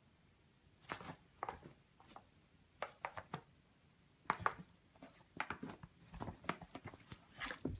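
Scattered soft taps and clicks, sparse at first and more frequent from about halfway: a cat's paw batting at a tablet screen and knocking the tablet about.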